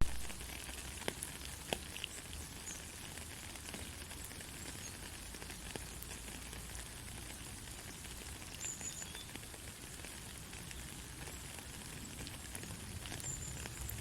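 Soft steady rain: a fine even hiss with scattered individual drops ticking, and one sharper, louder drop right at the start.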